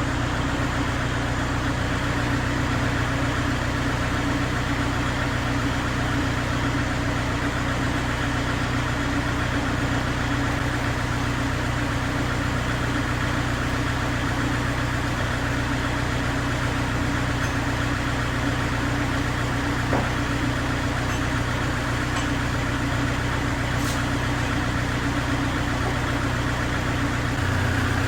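An engine idling steadily, with a slight change in its low tone near the end.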